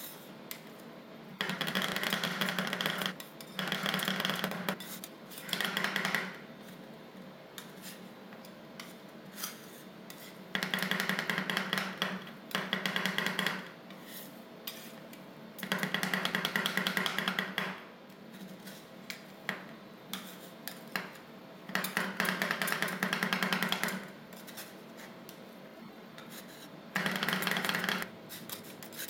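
Two metal spatulas chopping and scraping an ice cream base on a metal cold plate. Bursts of rapid tapping a second or two long come about eight times, with quieter scrapes and single clicks between.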